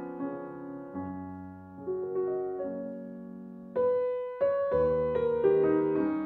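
Piano music: slow, sustained notes and chords, with a louder chord struck about four seconds in.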